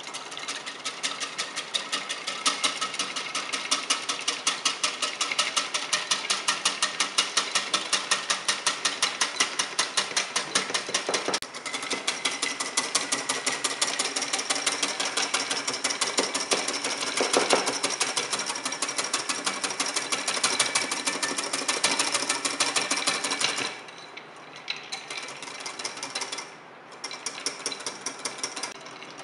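Wire balloon whisk beating fresh cream by hand in a ceramic bowl set over an ice bath: a fast, steady clatter of whisk strokes against the bowl, with a brief break near the middle. The strokes stop about three-quarters of the way through, and a few lighter, scattered strokes follow.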